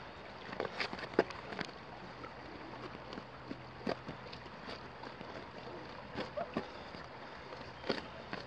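Flexible mold being peeled up off a rock surface, giving scattered short sticky snaps and crackles, several close together in the first two seconds and a few more later, over a steady background hiss.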